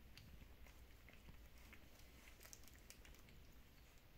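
Near silence with faint scattered wet clicks and smacks from a Shiba Inu mother and her nursing puppies.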